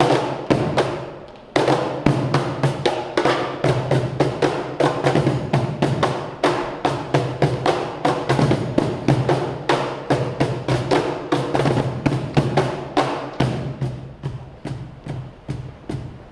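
Tap shoes striking the floor in quick, dense rhythms over accompanying music, with a brief break about a second and a half in.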